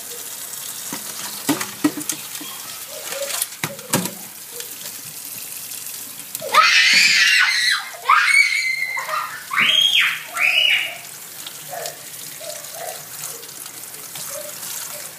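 Kitchen tap running into a stainless-steel sink over crabs in a colander, with a few sharp knocks in the first four seconds. About six seconds in, four loud high-pitched shrieks from a person cut across the water.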